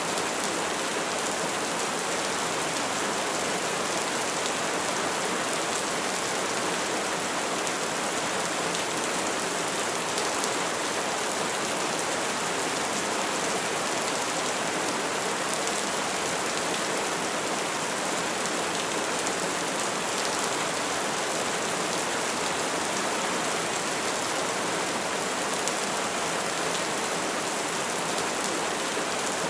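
Steady rain falling in an even, continuous hiss.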